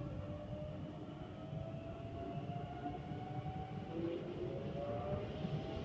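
Electric train heard from inside the carriage as it pulls away from a station: the motors whine in a few tones that rise slowly in pitch as it picks up speed, over a steady rumble of the wheels on the track. A second rising whine joins about four seconds in.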